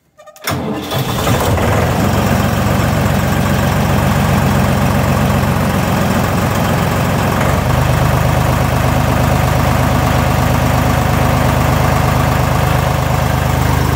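Deutz D4506 tractor's air-cooled diesel engine cranked briefly by the starter and catching within about a second, on a cold start after several weeks unused and without the cold-start heater, then running steadily. About seven and a half seconds in its note changes and settles into a steadier run.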